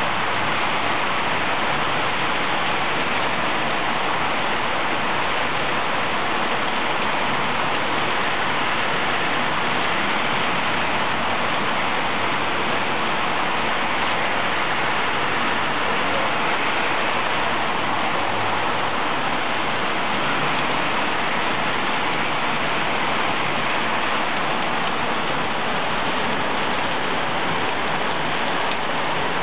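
Heavy rain falling steadily, a constant even hiss of downpour with no pauses.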